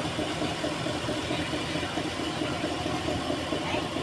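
Railway diesel engine running steadily at low revs while the train moves slowly.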